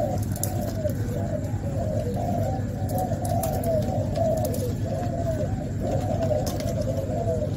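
Several spotted doves cooing without a break, their coos overlapping and repeating, over a steady low rumble.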